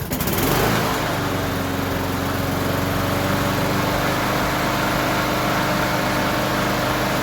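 Troy-Bilt lawn mower engine coming up to speed within the first second, then running steadily.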